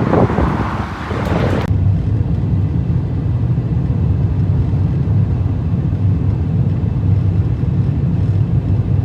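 Wind buffeting the microphone for nearly two seconds, then a sudden change to the steady low rumble of a car driving on the road, heard from inside the cabin.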